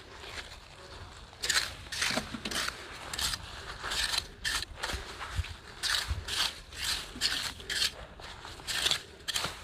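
Small metal clam rake scraping and digging through wet, gritty sand and shell fragments in repeated strokes, about three every two seconds, while raking for Manila clams.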